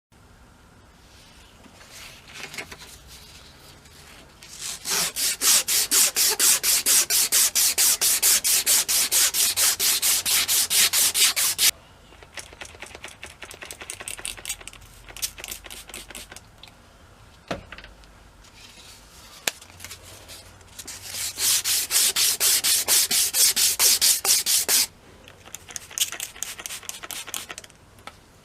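Rapid back-and-forth rubbing with an abrasive worked by hand, about four to five strokes a second. It comes in two long runs, the second starting about twenty seconds in, with quieter scattered scrapes and a few clicks between them.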